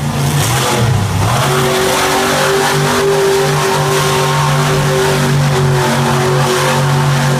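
Monster truck engine revving. Its pitch wavers up and down for about the first second, then holds at a steady high pitch for several seconds.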